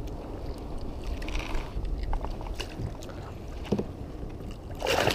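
Low rumble of wind on the microphone and water against a plastic kayak hull, with a few small knocks. Near the end a louder burst of splashing starts.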